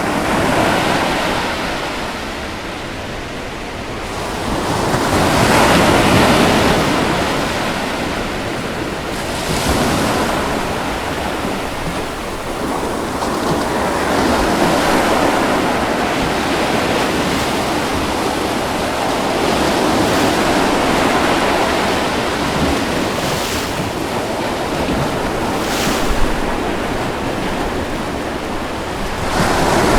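Ocean waves breaking and washing on a shore: a continuous rush of surf that swells and ebbs, loudest about six seconds in, with a couple of brief splashes near the end.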